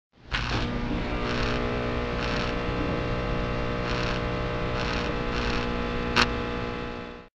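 Neon-sign buzz sound effect: a steady electrical hum with a short crackle about once a second. A sharp zap comes about six seconds in, and the sound cuts off suddenly near the end.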